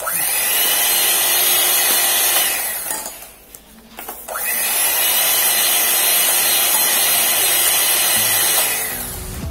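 Electric hand mixer running, its beaters whisking cake batter as the dry ingredients are beaten in. It cuts out about three seconds in, starts up again a second later, and dies away near the end.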